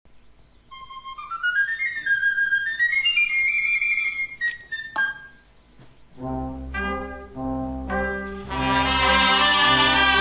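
Sardana played by a cobla. A solo flabiol plays the ornamented opening flourish, a single tamborí stroke closes it about five seconds in, and then the full band enters with brass chords over a low bass, growing louder near the end.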